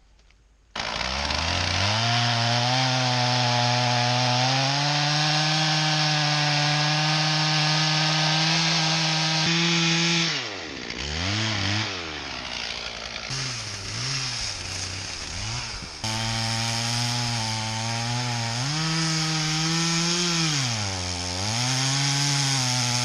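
Stihl 044 two-stroke chainsaw cutting a hickory log at full throttle. Its pitch drops and it revs up and down several times in the middle, then runs at full throttle again and stops abruptly at the end.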